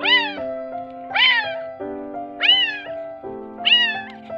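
Kitten meowing four times, about one cry every second and a quarter, each a short call that rises then falls in pitch, over background music with held notes.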